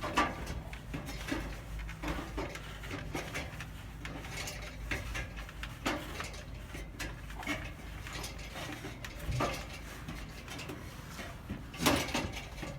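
Scattered clicks, knocks and clatter of equipment being handled, several a second at times and loudest near the end, over a steady low hum.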